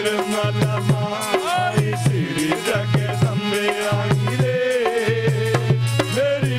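Indian devotional song music (a Navratri bhajan): tabla keeps a steady rhythm under a melody with sliding pitches.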